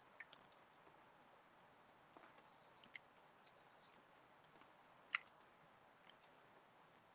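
Near silence: a faint background with a few scattered faint clicks and short high chirps, and one sharper click about five seconds in.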